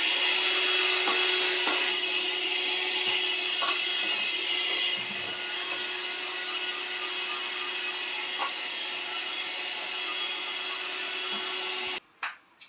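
Electric hand mixer running steadily, its beaters whisking butter cake batter in a stainless steel bowl, then switched off suddenly about twelve seconds in.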